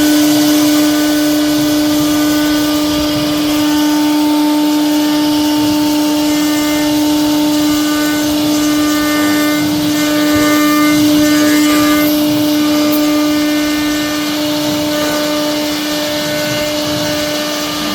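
CNC router spindle running with a steady whine as the machine carves wood, with fainter higher tones coming and going over it.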